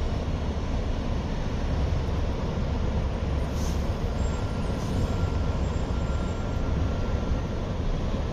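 Steady low rumble from an Amtrak passenger train standing at the station platform. A faint thin high tone sounds for a few seconds in the middle.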